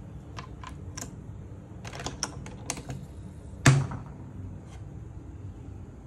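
Light plastic clicks and taps as a coffee capsule is put into the capsule chamber of a Scishare capsule coffee machine, then one loud clack a little past halfway as the machine's lid is pressed shut.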